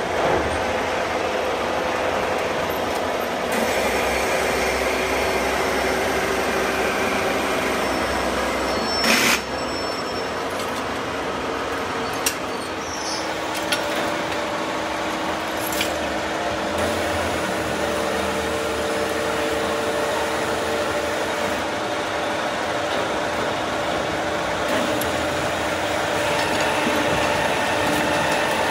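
Workshop machinery running steadily, with faint humming tones that change pitch now and then. A few sharp metal knocks stand out, the loudest about nine seconds in.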